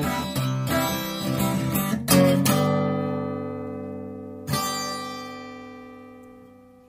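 Closing bars of the backing music, an acoustic guitar: chords strummed, then a last chord struck about two seconds in and another midway, each left to ring and slowly fade out.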